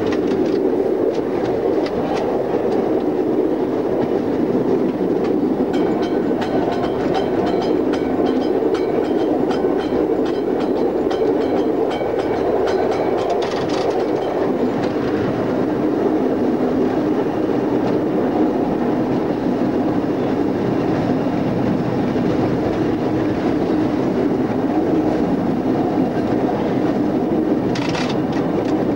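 Interurban tram running along the line, heard from the driver's cab: a steady rumble of wheels on rail with irregular clicks over rail joints, thickest in the middle stretch. A brief higher noise comes near the end.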